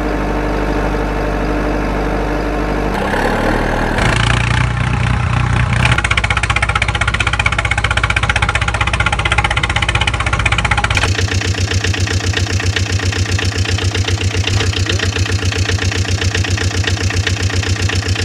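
Engine sound effects of motor vehicles running, changing to a different engine recording about four seconds in. From about eleven seconds in it is an engine chugging with a fast, even beat.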